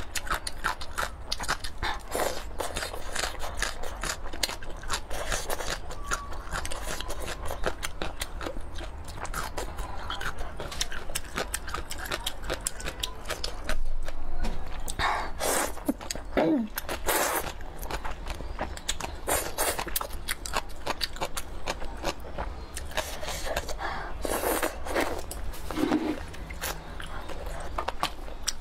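Close-up mouth sounds of eating Guizhou rice noodles in soup: steady wet chewing with many small clicks, and a few louder slurps of noodles about halfway through.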